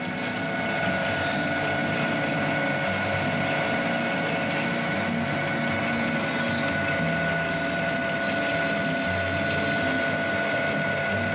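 Metal lathe running steadily, with a constant gear whine over a shifting low rumble, as it machines steel spacers.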